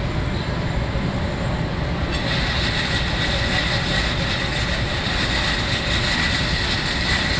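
Steady running noise of automatic brick-loading machinery in a ceramics plant: a constant low rumble with a thin, steady high whine over it.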